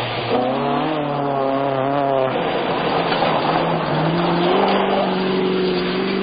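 Rally car engine running hard on a gravel stage, with stones and dust hissing under the tyres. The engine note wavers at first, then climbs about four seconds in and holds steady at high revs.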